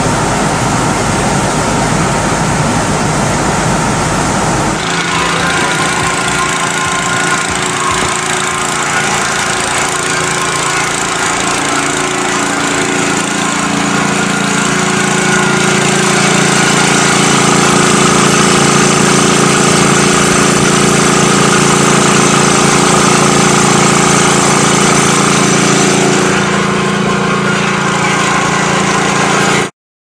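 Loud, steady noise that changes abruptly about five seconds in to machinery running steadily, a hum of several steady tones that fills out around thirteen seconds. The sound cuts off suddenly just before the end.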